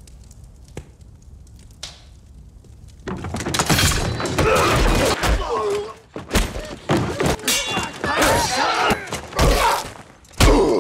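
A tense hush with a faint click, then about three seconds in a brawl breaks out: a dense run of heavy thuds and blows, crashes and something shattering, with grunts mixed in. It is a film fight soundtrack.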